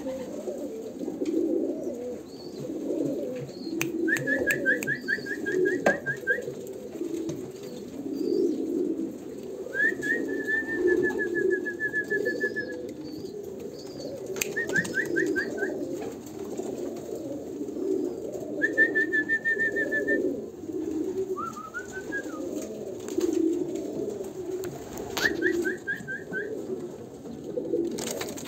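Pigeons cooing over and over in low, pulsing hoots. Five times a high, rapid trill of short repeated notes cuts in above them.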